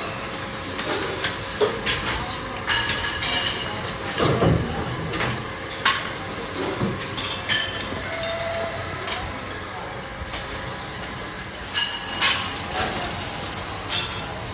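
Steel tubes clanking and clinking in a hand-lever tube-bending jig as bicycle handlebar tubes are bent and handled, with irregular metallic knocks, some of them ringing briefly.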